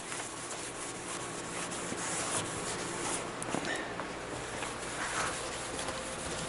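Paper towel rubbing over a car's plastic headlight lens in a steady wiping sound, cleaning off the grime with glass cleaner.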